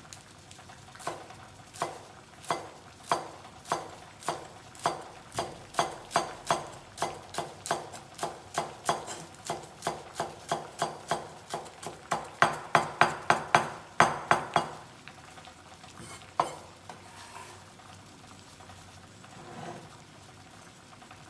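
Cleaver chopping green leaves on a bamboo cutting board: a steady run of sharp knocks, about two to three a second, quickening to about four a second after some twelve seconds and stopping about fifteen seconds in. One lone knock follows a second later.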